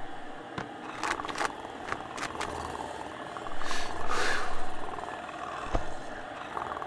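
Cartoon cat sound effects: a few light taps and rustles as the cat clambers down into the man's lap, then, from about halfway, a steady cat purr.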